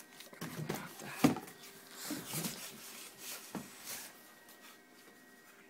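Cardboard boxes scraping and rubbing against each other as a boxed laptop is slid out of a tightly packed cardboard carton, with one sharp knock about a second in.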